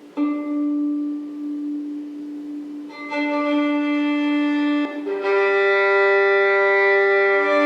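Slow bowed violin melody of long held notes, one note for each few seconds, changing pitch about three and five seconds in.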